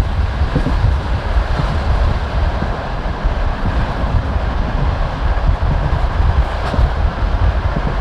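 Passenger train carriage rolling at speed: a steady rumble of wheels on rails, with a few faint knocks.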